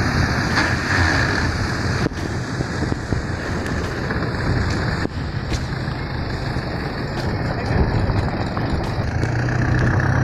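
Small fishing boat's engine running with a steady low hum over heavy wind and rough-sea noise.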